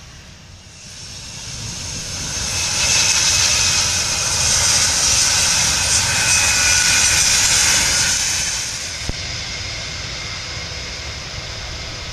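Airbus A400M Atlas's four turboprop engines and eight-bladed propellers as the aircraft rolls past close by on the ground: a hissing engine noise with a steady high whine that swells loud about two seconds in and falls away after about eight and a half seconds, over a low rumble.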